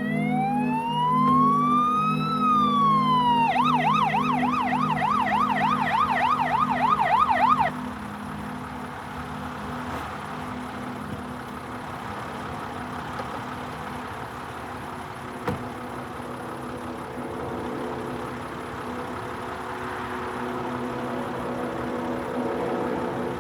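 Emergency vehicle siren, first a slow wail rising and falling, then switching to a fast yelp about three and a half seconds in, and cutting off suddenly at about eight seconds. Soft background music continues after it.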